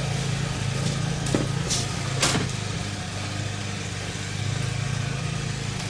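A steady low motor hum runs throughout. In the first couple of seconds there are a few light clicks and rustles as the snowblower's plastic battery box is handled to fit a rubber band.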